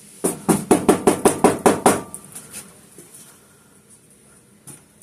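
A bird trapped inside a sheet-metal furnace flue pipe, thrashing against the metal: a loud, rapid flurry of about ten knocks and rattles over roughly two seconds that then dies away to a few faint taps.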